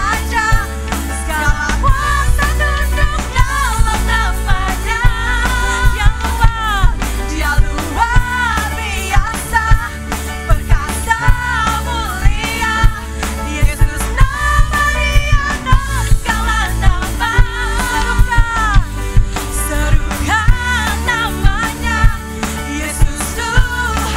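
A woman singing a worship song in Indonesian with a live band: a drum kit keeping a steady beat under a deep bass.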